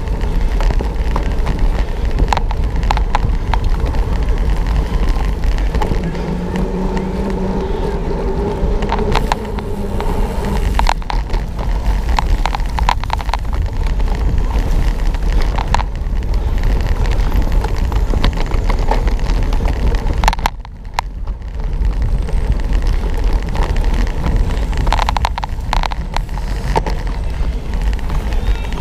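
Wind rushing over the microphone of a camera mounted on a cyclocross bike ridden fast over rough grass, with the bike rattling and giving scattered sharp knocks over bumps.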